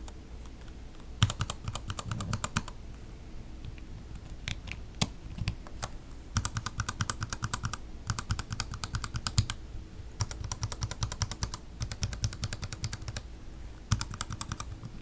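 Mechanical keyboard with Gateron Yellow linear switches, some in milky housings and some in black-bottom housings, typed on in quick runs of keystrokes. Each run lasts about a second, with short pauses between runs.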